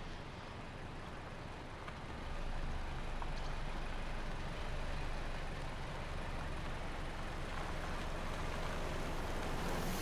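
Mercedes-Benz E-Class sedan driving slowly across stone paving: steady engine and tyre noise that gets louder about two seconds in.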